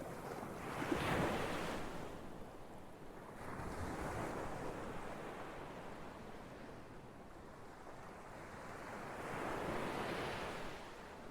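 Ocean waves surging and washing on the shore, swelling three times: about a second in, around four seconds in, and near the end.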